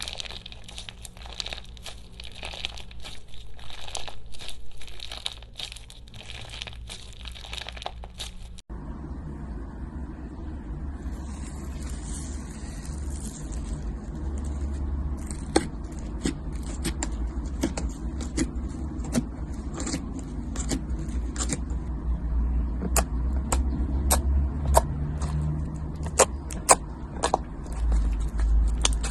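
Hands squeezing and stretching slime: dense crackling for about the first nine seconds, then, after a sudden cut, a low rumbling handling sound with scattered sharp pops and clicks.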